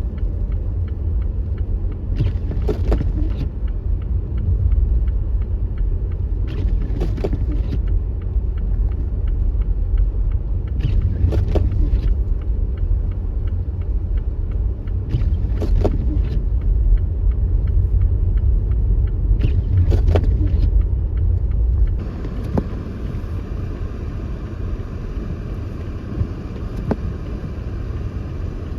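Car cabin noise while driving on a deep-snow-covered road: a steady low rumble of road and engine, with a windshield wiper swish about every four and a half seconds. About 22 seconds in the sound changes abruptly to a lighter, hissier rumble.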